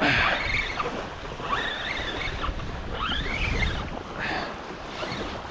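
Wind rumbling on the microphone over small waves washing up onto a sandy shore.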